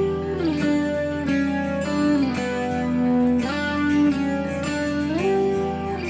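Background music on guitar: a melody whose notes slide smoothly from one pitch to the next several times over a held lower part.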